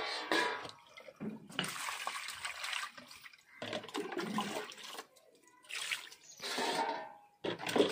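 Water sloshing and splashing as cut fish pieces are washed by hand in a vessel of water, in about six irregular bursts with short pauses between.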